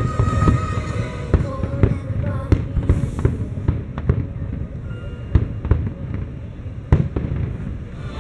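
Aerial firework shells bursting overhead in an uneven run of about a dozen booms and cracks, the loudest near the start and about seven seconds in, with music faint underneath.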